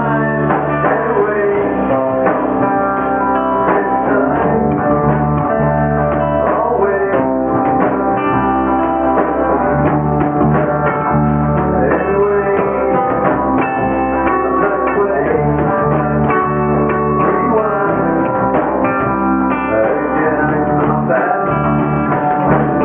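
A rock band playing live: electric guitar over bass guitar and a drum kit, with no break.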